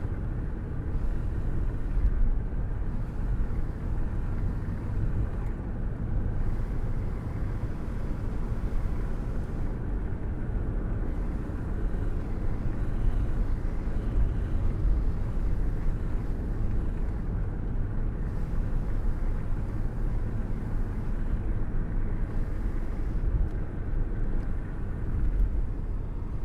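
Car cruising at a steady speed with a window open and a hand held out into the airstream: steady low road and wind rumble with constant buffeting.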